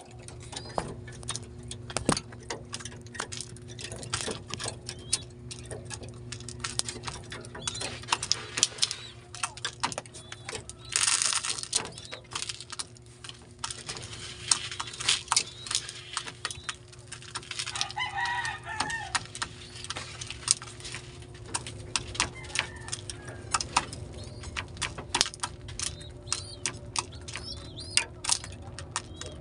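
Pigeons in a wooden loft moving close to the microphone, making many sharp taps and clicks over a steady low hum. There is a brief rush of noise about eleven seconds in, a short wavering call around eighteen seconds, and faint high chirps near the end.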